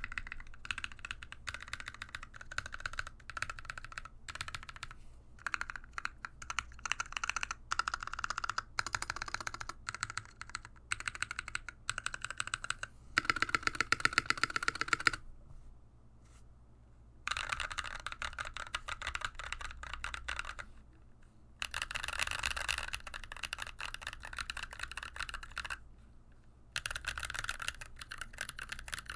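Fast typing on a mechanical keyboard with lubed Glorious Panda tactile switches in a polycarbonate-cased NK65v2: rapid runs of keystrokes, broken by a few short pauses.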